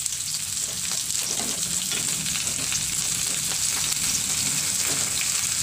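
Blue swimming crab pieces frying in hot oil in a pan: a steady sizzle with many fine crackles.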